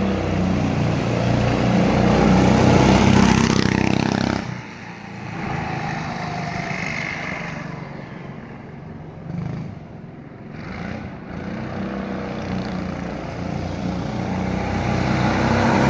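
Go-kart's 6.5 hp Honda-clone single-cylinder four-stroke engine, governor still fitted, running under load through a torque converter. The engine sound drops away suddenly about four seconds in, then rises in pitch and grows louder toward the end as the kart comes closer.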